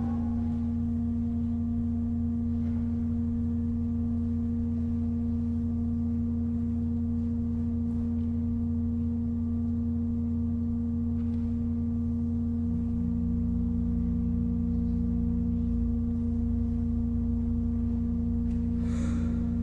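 Cavaillé-Coll pipe organ holding a long, steady chord of sustained pipe tones over a low drone. A lower note enters about two-thirds of the way through, and a short burst of noise sounds near the end.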